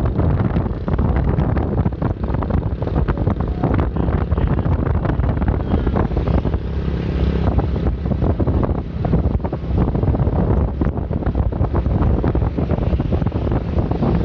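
Heavy wind buffeting the microphone over a steady low rumble of road traffic and engine, recorded while moving along the road; no horn sounds.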